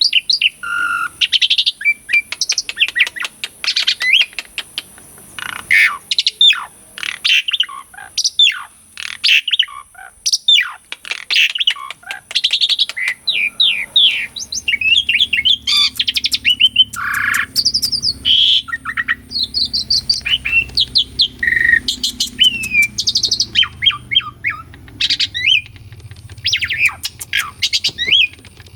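Javan pied starling (jalak suren) in full song: a continuous, varied run of quick whistles, rising and falling notes and chatter.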